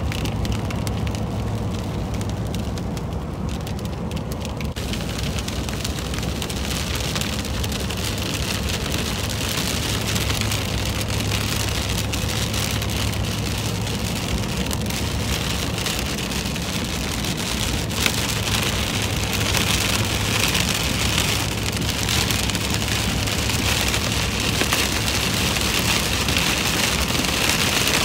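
Heavy rain drumming on a moving vehicle's windshield and roof, heard from inside the cab over the steady drone of engine and tyres. The rain thickens about five seconds in and grows heavier again from about eighteen seconds on.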